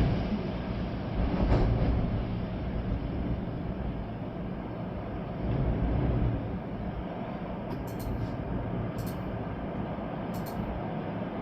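Storm wind gusting through trees with rain, a steady deep rumble that swells twice. A few sharp ticks sound in the last few seconds.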